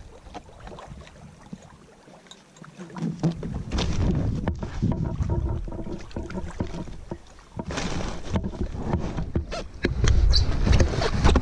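An inflatable packraft and its load being handled at the water's edge: irregular rustles, with scattered light knocks and clicks. A louder low rumble comes in near the end.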